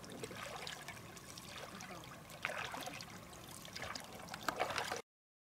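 Kayak paddle strokes: blades dipping and splashing in lake water, with water trickling and dripping off them, and a louder splash about halfway and another near the end. The sound cuts off suddenly about five seconds in.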